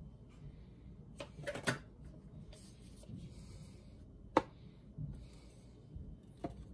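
A few light knocks and clunks of kitchen things handled and set down on a wooden board and counter: a quick cluster of three, a louder single knock, then one more near the end.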